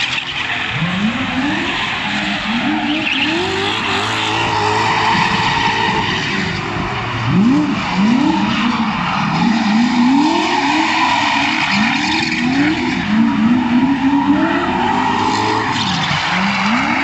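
Drift cars sliding in tandem: an engine revving up and dropping back over and over as the throttle is worked, over the hiss of sliding, squealing tyres.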